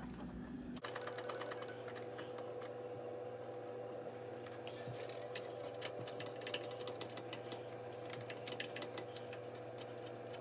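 Rapid light clicks and taps of a DDR2 RAM stick being worked into a motherboard memory slot, over a steady electrical hum.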